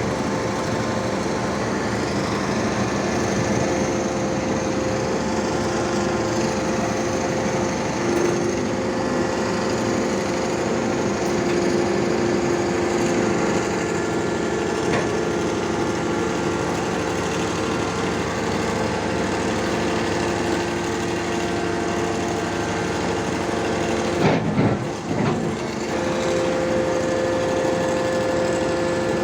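Hydraulic static pile driver's power pack running steadily, a machine drone with a held whine from the hydraulic pump. About 24 seconds in the sound briefly breaks up, then settles back to the same steady note.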